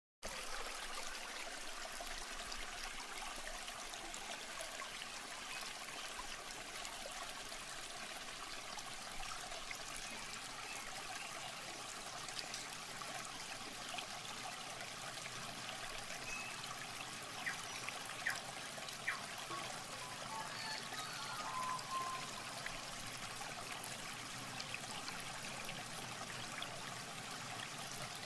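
Shallow muddy water running and splashing steadily around hands and a fishing net, with a few sharp knocks about two-thirds of the way through.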